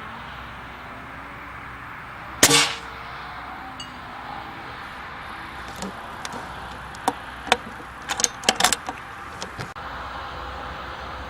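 One sharp report from an Air Arms S410 pre-charged pneumatic air rifle, about two and a half seconds in. A few seconds later comes a quick run of metallic clicks, typical of the side lever being worked to cock the rifle and load the next pellet.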